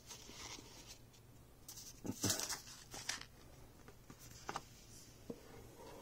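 Handling noises of a wand and its cardboard presentation box: a few light knocks and short scrapes, the loudest cluster about two seconds in.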